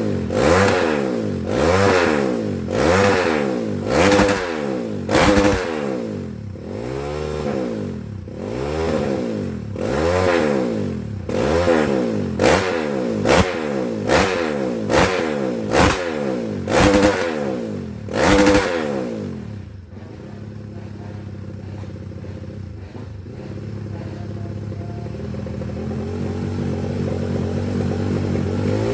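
Racing motorcycle engine being revved in repeated throttle blips, its pitch rising and falling about once a second. About two-thirds of the way through it drops to a steady idle.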